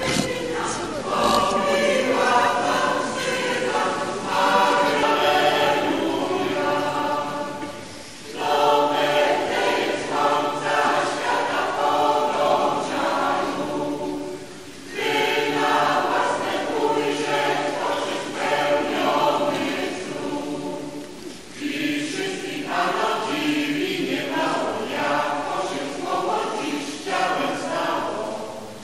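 Church choir singing in four long phrases, with short breaks between them.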